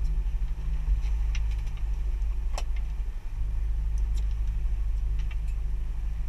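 Boat engine running steadily, a low drone, with a few short sharp clicks over it, the loudest about two and a half seconds in.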